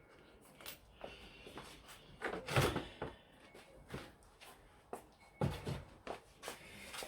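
Handling noise while cleaning gear and a slate clock case are worked with: a string of light knocks and clicks, with two heavier thuds about two and a half and five and a half seconds in.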